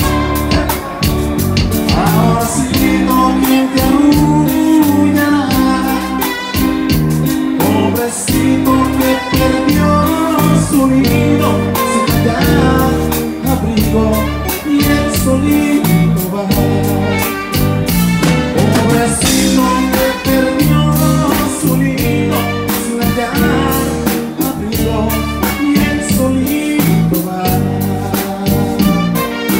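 Live band playing a romantic medley: a sung melody over a steady beat, with bass, guitar and drums.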